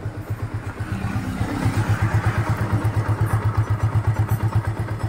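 Yamaha Vixion's liquid-cooled single-cylinder four-stroke engine idling with an even beat, about eight or nine pulses a second, growing slightly louder about a second in. It is running with a newly fitted water pump seal, bearing and impeller shaft.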